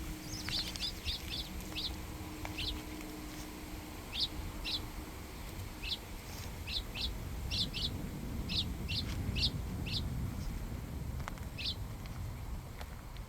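Bird chirping: a string of short, high single chirps, some in quick pairs, thinning out after about ten seconds, over a low rumble.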